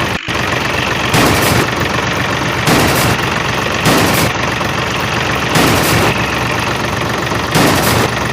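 An engine running steadily, with louder surges about every one to two seconds.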